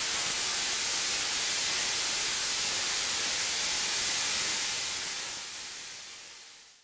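Tesla coil's high-voltage spark discharges giving off a steady hissing sizzle that fades out near the end.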